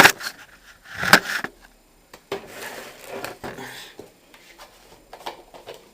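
Fabric softener being added to a washing machine: two sharp knocks as the plastic bottle and cap are handled, then about a second and a half of liquid pouring, followed by light clicks and taps.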